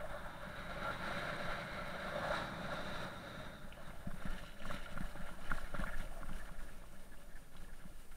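Mountain bike riding along a wet track, heard from a bike-mounted camera: a steady hiss of tyres and wind. From about four seconds in come scattered clicks and knocks as the bike jolts over rougher ground.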